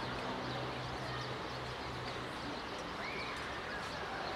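Outdoor ambience: small birds chirping over a steady low background hum, with one longer bird call about three seconds in.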